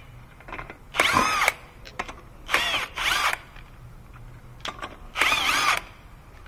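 Handheld power tool with a socket spinning lug nuts off a car wheel in four short runs of about half a second each, the motor's pitch rising and falling with each run.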